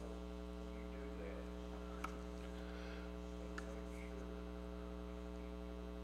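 Steady electrical mains hum with its overtones in the recording, with a faint tick about two seconds in and another about a second and a half later.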